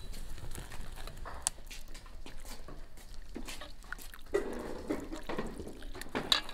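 Chopsticks and ladle clicking against an enamel bowl while noodles and soup are served, with liquid dripping and splashing. A short pitched sound comes about four to five seconds in.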